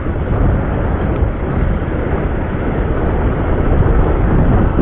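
Steady rumble and rush of a motorcycle on the move, with its engine and road noise blending into a dense, even roar and no distinct engine note.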